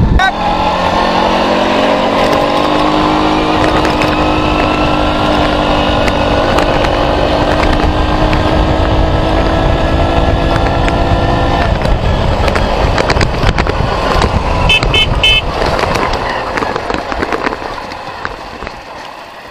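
K-Lion Santa 200 quad bike engine running under way at a steady pitch, then easing off about twelve seconds in. A few short high beeps sound about fifteen seconds in, and the engine sound falls away near the end.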